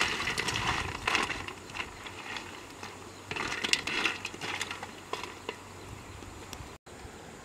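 Spatula scraping and stirring around the inside of a large wok, in several irregular scrapes with small taps, mostly in the first four seconds and fading after that.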